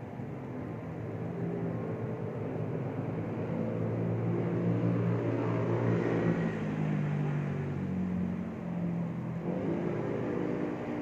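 A motor vehicle's engine passing: it grows louder to a peak about six seconds in, its pitch shifting in steps, then fades.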